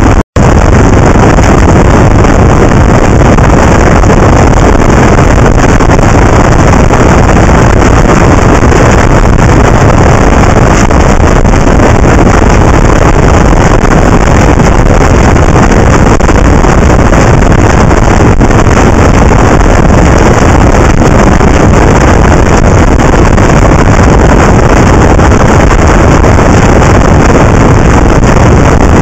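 Loud, steady wind rush on the microphone of a camera mounted on a motorcycle riding at road speed, drowning out the engine. The sound drops out for an instant just after the start.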